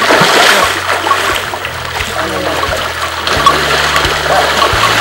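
River water splashing and sloshing around elephants wading and being bathed in a shallow river, with background music low underneath.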